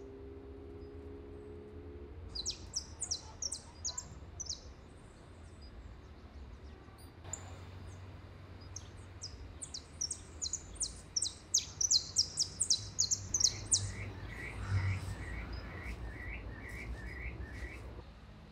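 Bird calling in runs of rapid, short, high-pitched chirps: one run about two seconds in and a longer one around the middle, followed by a lower-pitched series of short notes toward the end, over a steady low background rumble.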